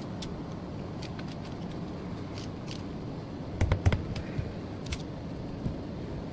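Light metallic clicks and taps of hand tools, a screwdriver and a socket wrench, working on an air-cooled VW rocker arm assembly, with a short cluster of louder clicks a little past halfway and another click about a second later, over a steady low hum.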